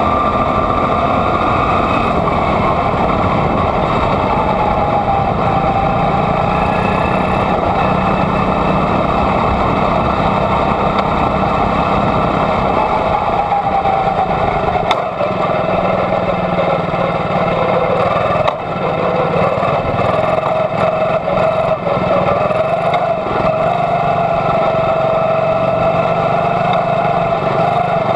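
Jr Honda quarter midget's single-cylinder Honda engine running hard at race speed, heard from onboard: a steady high drone whose pitch sags and climbs again as the car goes through the turns, with a brief dip in loudness twice around the middle.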